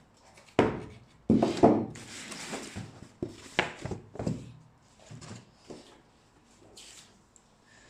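A cardboard shoebox being opened and its contents handled: several knocks and scrapes of the lid, with rubbing and rustling, busiest in the first few seconds and dying away after about five seconds.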